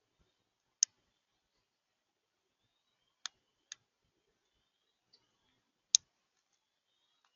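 A few sharp, isolated clicks or taps at irregular intervals, with two close together in the middle; the last is the loudest.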